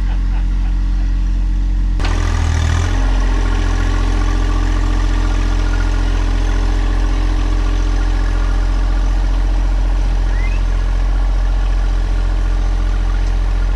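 John Deere 1025R compact tractor's three-cylinder diesel engine running steadily as the tractor pushes its loader bucket through loose soil. About two seconds in the sound turns brighter and fuller.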